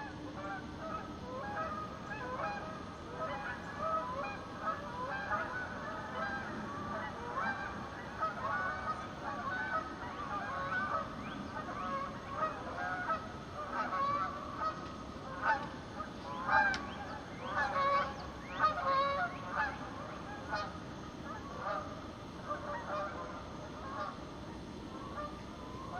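A flock of geese honking, many short calls overlapping, busiest and loudest about two-thirds of the way through.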